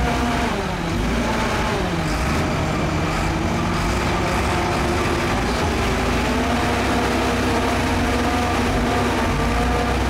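Diesel engines of Shantui crawler bulldozers working under load in deep mud during a recovery push. The engine note drops about a second in, then holds steady.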